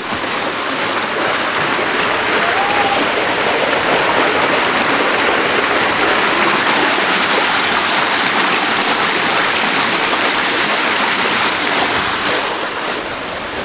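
Water rushing down a water-park slide flume and pouring into the splash pool: a loud, steady, even hiss of running water.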